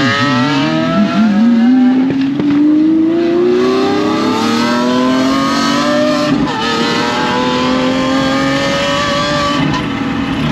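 Lamborghini Aventador's naturally aspirated V12 engine accelerating hard, its pitch climbing steadily through a gear. It drops at an upshift about six and a half seconds in, climbs again and shifts once more near the end.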